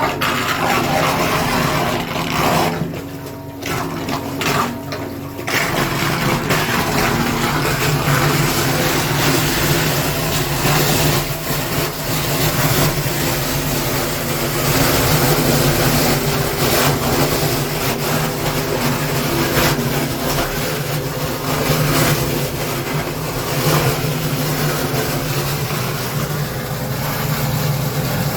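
Sewer-cleaning truck's engine running steadily, with a loud rushing noise from its hose working the drain; the rushing briefly drops away a few seconds in, then carries on.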